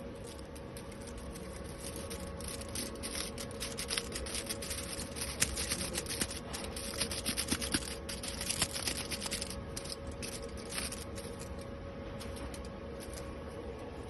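AC TIG welding arc on 20-micron aluminium foil: a steady hum with dense, irregular crackling that is busiest through the middle.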